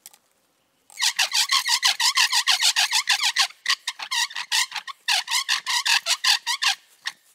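Bow drill fire-making: a wooden spindle spun back and forth in a notched hearth board by a bow, squeaking sharply with each stroke in a fast, even rhythm. The squeaks start about a second in, break off briefly twice, and stop near the end.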